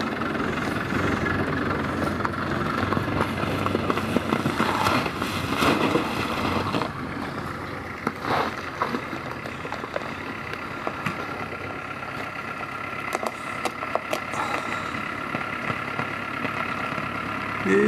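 Land Rover Defender 110's engine running as it drives along a muddy dirt track, steady, with a few scattered clicks and knocks.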